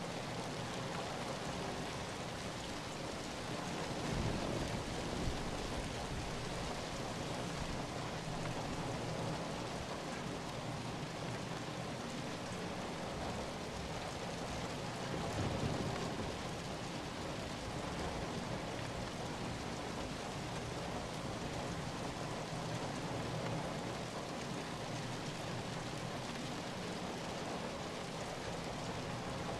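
Steady rain falling, an even hiss of many drops. It swells briefly louder and deeper about four seconds in and again around fifteen seconds.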